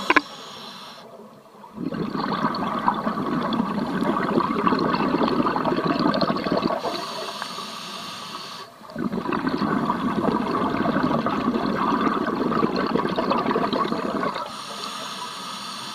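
Scuba regulator breathing heard underwater: two long bubbling exhalations, each followed by a shorter, quieter hiss of inhalation.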